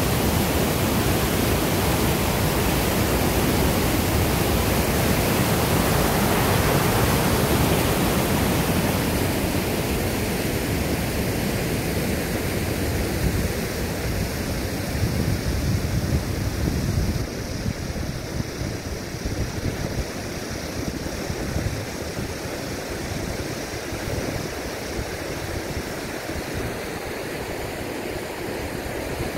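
Rushing water from a small waterfall pouring through a rocky gap, a steady full rush that turns softer a little past halfway, like a river flowing over a riffle.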